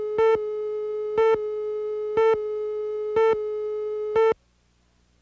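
Videotape slate countdown: a steady electronic test tone with a louder beep about once a second, five beeps in all. The tone cuts off a little over four seconds in, and near silence follows.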